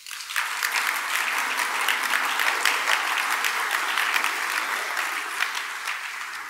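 Audience applauding: many hands clapping, starting suddenly, holding steady, and dying away near the end.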